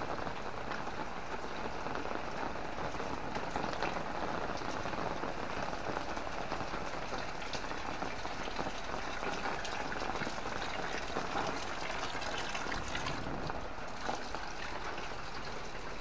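Heavy rain falling steadily, a dense even hiss made of countless individual drop hits.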